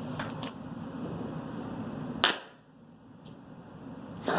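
Loudspeaker wired straight to mains AC buzzing steadily, then a single sharp loud pop a little over two seconds in as it blows, after which the buzz stops.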